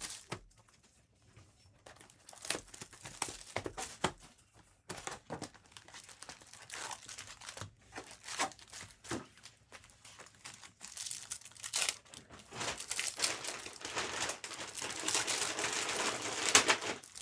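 Plastic wrapping crinkling and tearing as trading card packs are handled and opened: sparse rustles and clicks at first, building to a dense run of crinkling over the last several seconds.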